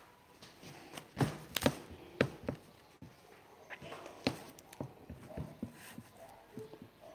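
Scattered knocks and taps of handling noise, a handful of sharp ones clustered between about one and two and a half seconds in and another just after four seconds, with softer taps in between.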